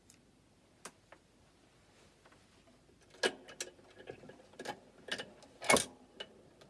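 Irregular clicks and a few louder knocks from a gramophone being set going, the needle and tone arm handled and set onto a 78 rpm record. They come sparsely at first and thicker after about three seconds in.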